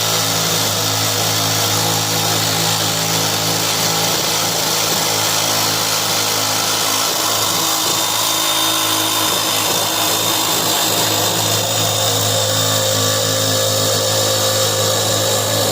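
Electric power saw running steadily as it cuts the old plywood floor edge at a 45-degree angle, so the new flooring can tuck in under it.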